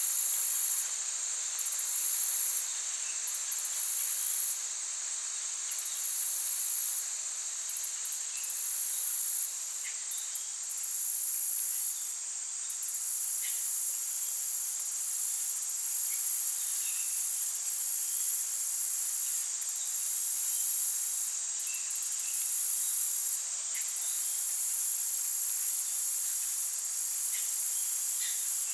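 A chorus of insects, cricket-like, keeping up a steady high-pitched trill, with the highest layer cutting in and out every second or so. A few faint, short chirps sound over it.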